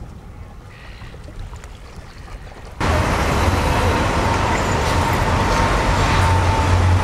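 Tram running: after a quieter stretch, loud steady running noise starts abruptly about three seconds in. It has a strong low hum and a faint steady whine that fades near the end.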